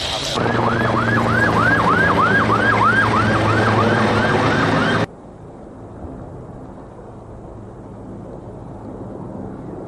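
Emergency vehicle siren with a fast rising-and-falling wail, close to three cycles a second, over a steady engine hum. It cuts off abruptly about five seconds in, leaving a quieter steady rushing noise.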